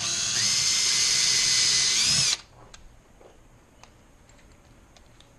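Electric drill running at speed for about two seconds with a steady whine, then stopping suddenly; a few faint clicks follow.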